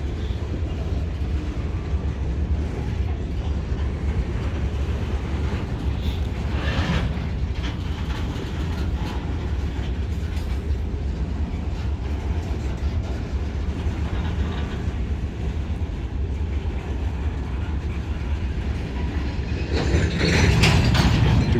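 CSX freight train moving slowly through a rail yard during switching: a steady low diesel rumble under rolling freight cars, with scattered clanks and a louder run of metallic clanging and banging near the end.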